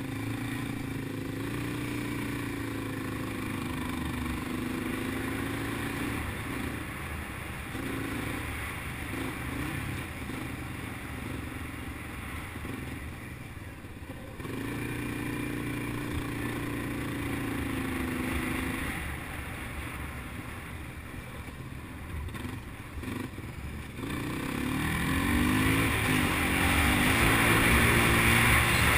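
ATV engine running under way, its pitch rising and falling with the throttle. It gets louder about five seconds before the end, with a broad rushing noise over it.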